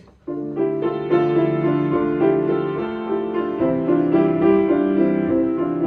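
Piano music starting a moment in, with held notes and chords changing every second or so.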